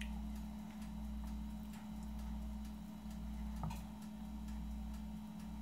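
Quiet room tone: a steady low hum that pulses gently about once a second, with faint light ticks and one slightly louder click a little past halfway.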